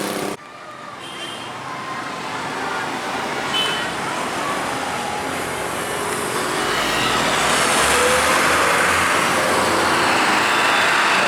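Road traffic noise that cuts in abruptly and then builds steadily as a vehicle draws near, with a low engine rumble from about six seconds in.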